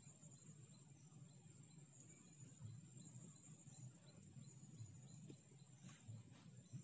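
Near silence outdoors: a faint, steady, high-pitched insect drone over a low rumble, with a faint click about six seconds in.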